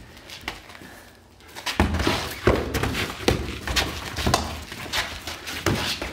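Medieval-combat sparring blows: weapons striking shields, armour and helmets in a rapid, irregular flurry of sharp knocks and heavy thuds, starting about two seconds in after a few light clicks.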